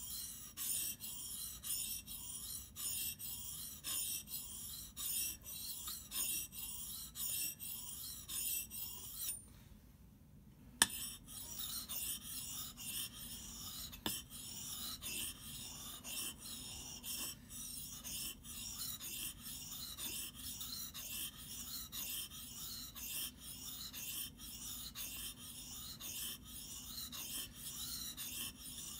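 Steel hatchet blade ground back and forth on a wet whetstone, a steady rhythm of high scraping strokes. About nine seconds in the strokes stop briefly and end with a single sharp knock, then the grinding resumes.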